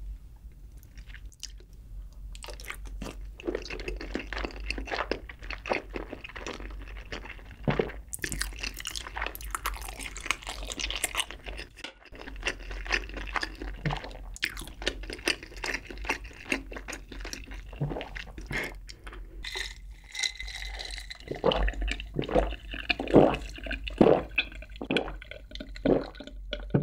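Close-miked chewing of a mouthful of Spam, rice and spicy stew: wet smacks and crunches. For the last six seconds or so this gives way to stronger, evenly spaced gulps of a drink swallowed from a jar.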